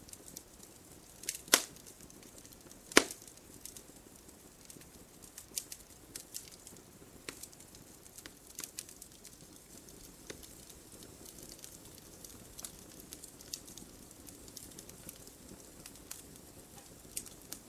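Campfire burning, a soft steady hiss with irregular crackles and pops of burning wood. Two sharp loud pops come about one and a half and three seconds in, and smaller snaps follow every second or so.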